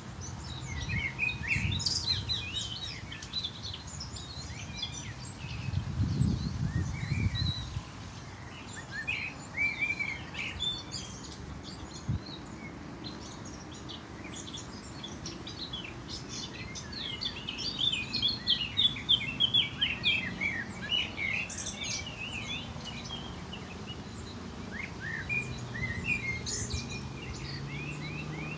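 Several small songbirds chirping and singing, with a busy stretch of quick repeated notes a little past the middle. Under the birds there is a low rumble about six seconds in and a faint steady low hum.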